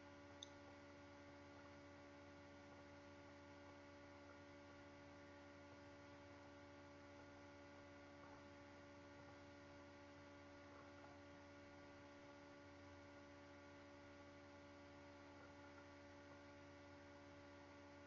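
Near silence: a faint steady hum made of several fixed tones, with one small click shortly after it begins.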